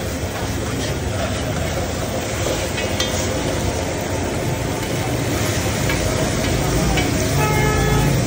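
Liver frying on a tawa griddle, sizzling steadily while a spatula stirs it, with a few sharp clicks of the spatula against the pan about three seconds in.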